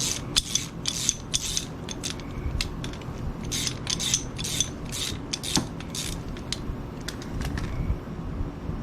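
Ratchet wrench clicking in short bursts of strokes, working a bolt through damaged threads to chase and clean them out. A steady low hum runs underneath.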